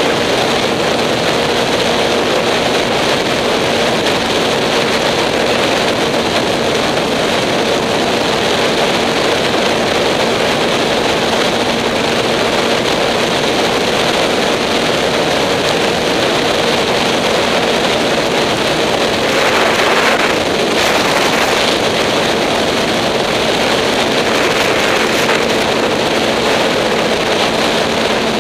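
Steady wind rush over a helmet-mounted camera at highway speed, with a 2008 Yamaha R6's inline-four engine running at a constant cruising pitch underneath. The rush swells briefly about two-thirds of the way through.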